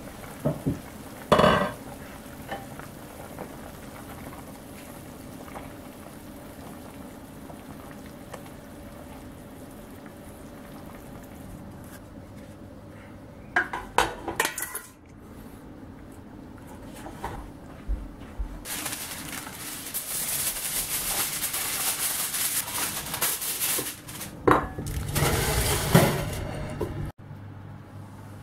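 Kitchen sounds of metal pots and utensils: a sharp clatter about a second in, clinks about halfway, and a long hissing, scraping stretch later on. A pot of spinach sauce boils steadily on a gas burner in the first part.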